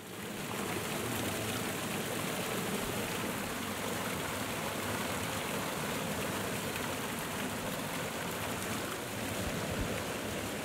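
Steady rushing noise, even and unbroken, easing off near the end.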